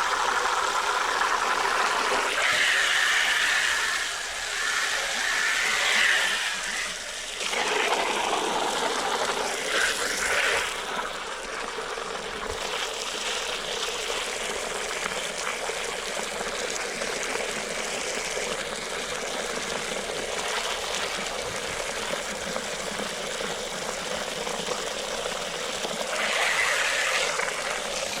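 Water running in a steady rush, a little louder in the first seven seconds and again near the end.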